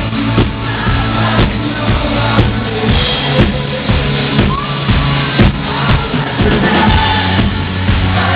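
Rock band playing live, with a steady drum beat, sustained bass and guitar notes, and a singer's voice over the PA.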